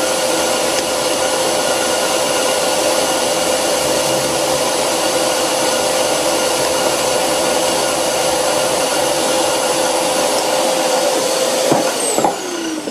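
Cast iron brake disc being turned on an old bench lathe with a round carbide insert: a loud steady rumble with a ringing tone from tool chatter that a bungee cord wrapped around the disc has not cured. Near the end the steady sound breaks off and falling tones follow as the lathe slows.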